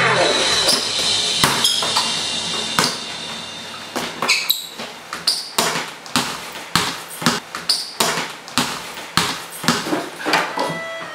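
A basketball being dribbled on a tiled floor, the bounces coming about twice a second in an uneven rhythm, while music fades out over the first few seconds.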